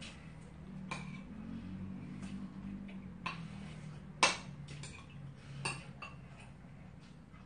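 Metal spoon and chopsticks clinking against ceramic and stoneware bowls during a meal. There are a handful of separate sharp clinks, the loudest about four seconds in.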